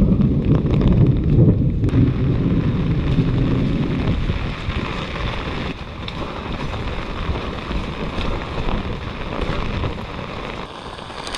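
Rain falling steadily with a loud low rumble of thunder that sets in suddenly and fades after about four seconds.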